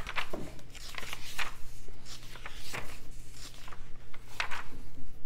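Pages of a glossy magazine being flipped by hand: a string of papery swishes and rustles.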